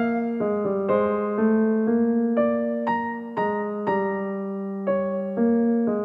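Background music: a slow, gentle piano melody, single notes struck about twice a second over sustained lower chords.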